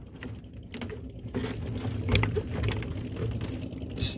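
Water splashing and sloshing, with scattered small clicks and a short, sharp noise near the end.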